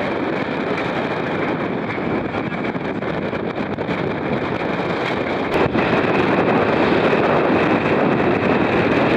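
Strong wind blowing across the microphone over the rush of a choppy sea, on the deck of a sailing yacht under way. A click a little past halfway, then the wind noise is louder.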